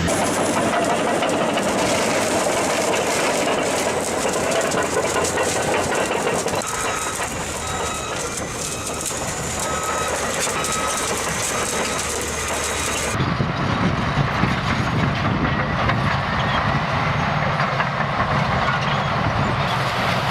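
Heavy earthmoving machinery at work: a steady, loud mechanical din of diesel engines and clanking steel, in three stretches that change abruptly about six and a half and thirteen seconds in.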